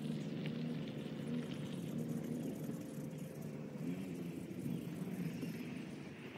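A motor vehicle's engine running with a steady hum that wavers in pitch in the second half and slowly fades.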